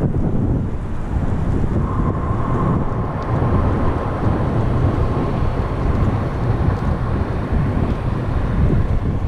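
Wind buffeting the microphone of a camera on a moving bicycle, a steady low rumble mixed with the bicycle's tyres rolling on a paved path. A faint thin whine shows briefly about two seconds in.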